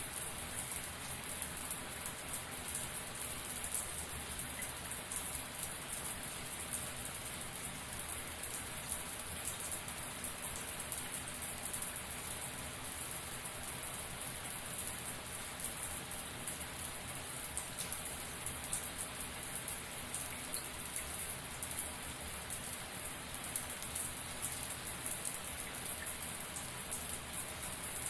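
Shower water spraying and pattering steadily, with a dense spatter of drops.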